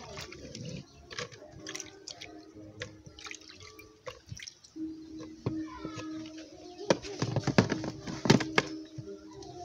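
Wet red chili peppers lifted out of a bowl of water and dropped into a plastic blender jar: dripping water and light plastic clicks. About seven seconds in come a cluster of louder knocks as the jar is set onto the blender base.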